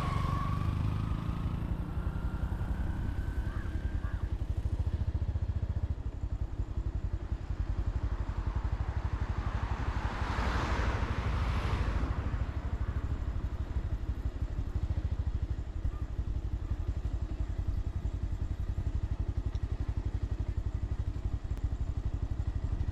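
Motorcycle engine running steadily while riding, with a fast low pulse throughout. A hiss swells and fades about ten seconds in.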